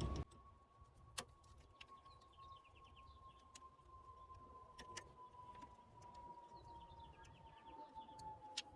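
Near silence: a faint steady tone that slowly sinks in pitch, with a few faint scattered clicks.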